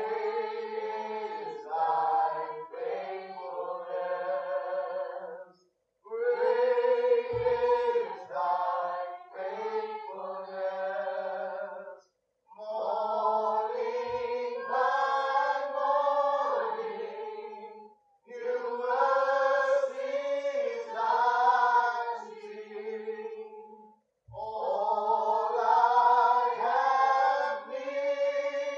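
A small group of worship singers, women and men together, singing a worship song in unison phrases of about six seconds each, with a brief silence between phrases. No instruments are heard.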